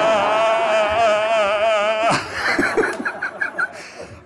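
A man's long, high-pitched held vocal cry, wavering slightly: a comic impression of a person struck by a jinn. It breaks off about two seconds in, audience laughter follows, and the cry starts again right at the end.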